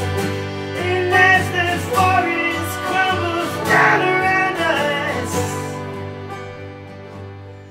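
Live acoustic folk music: a Gibson J-45 acoustic guitar strummed, a banjo picked and a harmonium holding chords, with voices singing. The playing thins out and gets quieter over the last couple of seconds.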